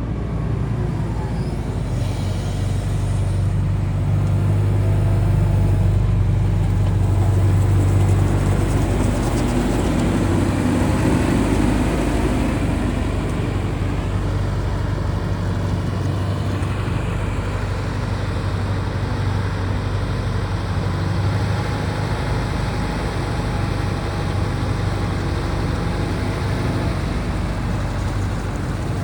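Hitachi ZX170W-5B wheeled excavator's diesel engine running steadily. It grows louder a few seconds in, then eases back to an even run, with a faint higher whine in the second half.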